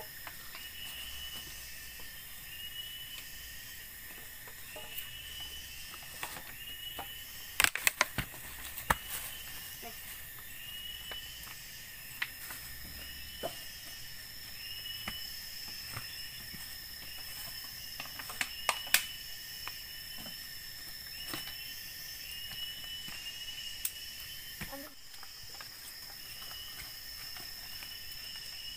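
Rainforest insect chorus: a steady high buzzing with a short chirping call repeating about once every two-thirds of a second. A few sharp knocks and clicks stand out, a cluster about 8 seconds in and another about 19 seconds in.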